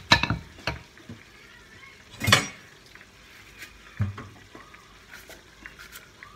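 Wooden pestle pounding in a clay mortar, several quick strikes in the first second, with a louder clatter about two seconds in and a dull thump about four seconds in. Light knife clicks follow while a vegetable is cut.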